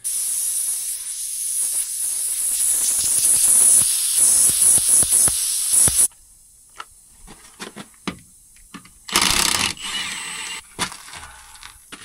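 Air hissing out of a punctured pickup truck tyre, a big leak, cutting off suddenly about six seconds in. Then scattered clicks and knocks, and a second short burst of hissing about three seconds later.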